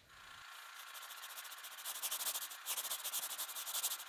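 Seismograph pen scratching rapidly across chart paper as it draws an earthquake trace, a fast, fine scratching that grows louder about halfway through as the swings widen.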